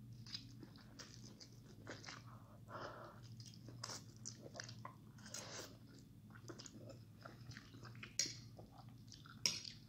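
A person eating instant noodles with a fork, slurping and chewing: a run of short, wet, irregular mouth sounds. There are two sharper, louder sounds near the end.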